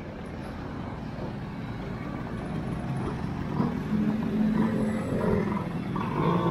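Vespa scooters riding past at low speed one after another, their small engines getting louder from about three and a half seconds in.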